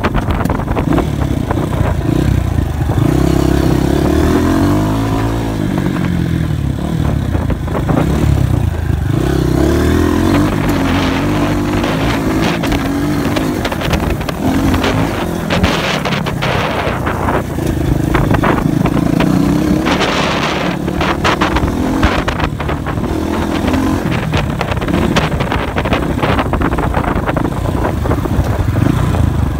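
Dirt bike engine running while riding, revving up and down repeatedly, with gusts of wind noise on the bike-mounted microphone.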